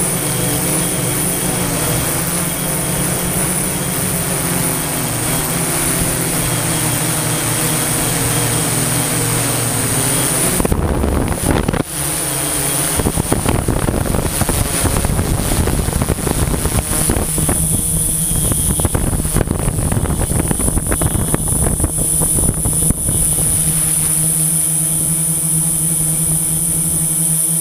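Steady hum and whine of a multirotor drone's motors and propellers, picked up by the camera on board. About 11 seconds in the sound turns rougher and noisier, then settles again near the end.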